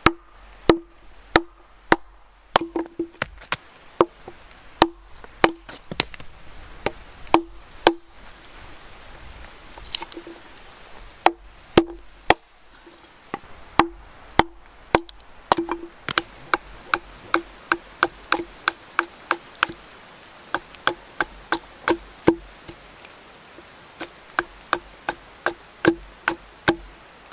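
Hatchet and knife splitting an ash billet into dowel blanks, then the hatchet chopping a small stick to shape. A long run of sharp wooden knocks, each with a short ring, coming irregularly at first and then steadily at about two a second over the second half.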